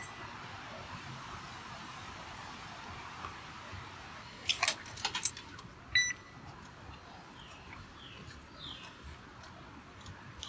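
Automatic railway ticket gate: a quick run of four or five sharp clicks, then about a second later a short electronic beep as the token ticket is read and the gate lets the passenger through. A steady hum of station ambience lies under it.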